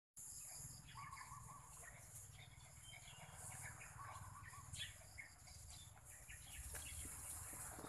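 Faint outdoor background: a steady high-pitched hiss with scattered faint bird chirps.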